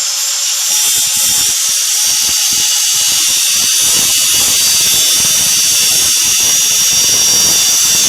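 A high-speed rotary cutting tool whines steadily, and about a second in its cutting wheel bites into a steel handcuff, adding a continuous grinding rasp as it cuts through the cuff.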